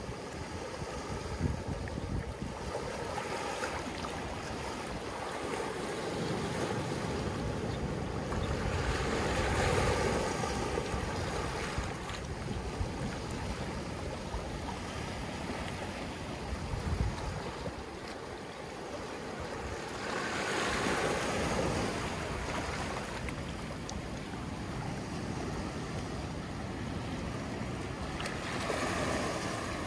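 Small ocean waves lapping onto a sandy shore and washing through scattered lava rocks: a steady surf wash that swells several times as waves come in.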